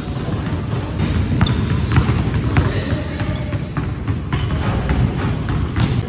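Basketball bouncing on a hardwood gym floor in a series of sharp knocks as it is dribbled and shot, with sneakers squeaking briefly a few times, over a steady low rumble of the hall.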